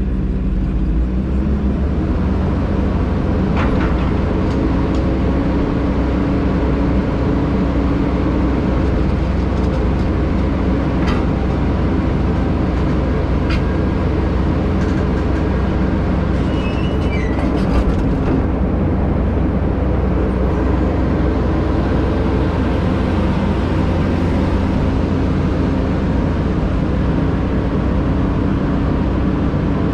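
Caterpillar excavator's diesel engine running steadily while digging, heard from inside the cab, with a few short sharp clicks and knocks.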